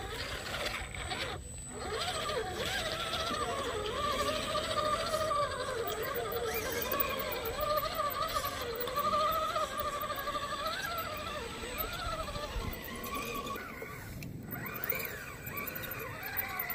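Redcat Gen-8 Scout II RC crawler's electric motor and geared drivetrain whining as it crawls over wet rock, the pitch wavering up and down with the throttle.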